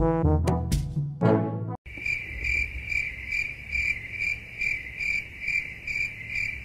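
Brass-and-piano music for about the first two seconds, cutting off abruptly, then a cricket chirping sound effect: an even, high chirp repeating about two or three times a second over a low hum.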